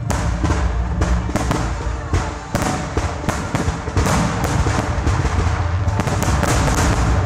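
Fireworks display: a rapid run of bangs and crackles over a low rumble, turning into a dense, almost continuous crackling about halfway through.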